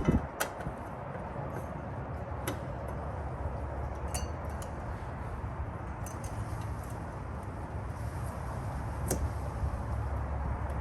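Scattered light metallic clicks and clinks, about half a dozen, as a Solex lock and its parts are handled and worked into place on the car, over a steady low hum.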